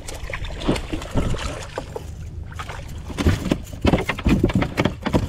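Wind rumbling on the microphone and water lapping at a plastic fishing kayak, with a run of irregular knocks and thumps against the hull from about three seconds in as a fish is landed.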